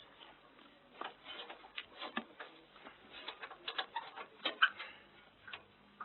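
Irregular light clicks and knocks, a few a second at times, with a sharper knock about two thirds of the way through, from ground crew handling armament and fittings on an L-39 jet trainer.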